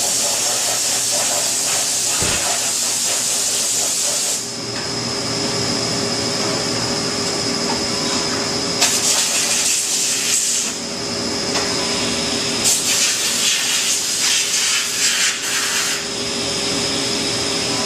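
Haas CNC milling machine running while cutting aluminium: a steady high whine, with loud hissing that comes and goes in three stretches of a few seconds each.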